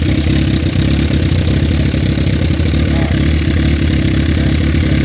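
First-generation Suzuki Hayabusa's inline-four engine idling steadily, carrying the odd noise that the owner likens to a fan rubbing on something, and that one person put down to a bad number 3 connecting rod.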